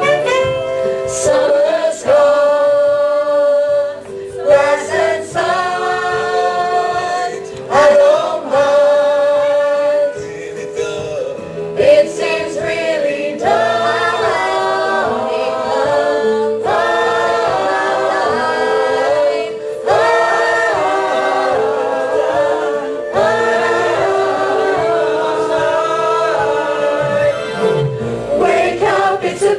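A large stage chorus singing an ensemble song together in phrases with held notes, over musical backing.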